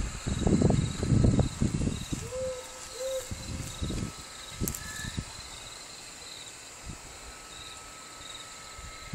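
Crickets chirping steadily, with an owl hooting twice about two to three seconds in. Low thumps and bumps from the handheld camera moving are the loudest sounds in the first two seconds.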